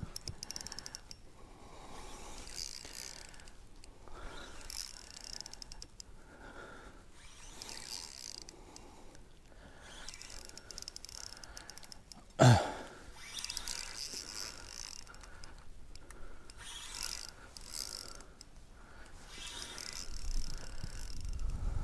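Fishing reel being cranked in repeated rasping, clicking bursts about a second apart, as a hooked fish is reeled in. One short, loud, sudden sound stands out about twelve seconds in.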